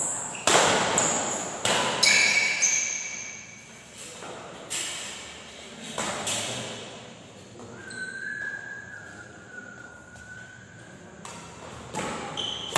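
Badminton rackets smacking a shuttlecock during a doubles rally, sharp strokes echoing in a large hall, several in quick succession at first, a few more spaced out, and more near the end.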